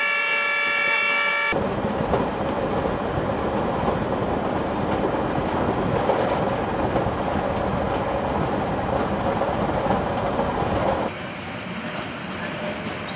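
Train horn sounding a steady note that cuts off about a second and a half in, followed by the steady rumble and rattle of a passenger train running along the track, dropping somewhat in level near the end.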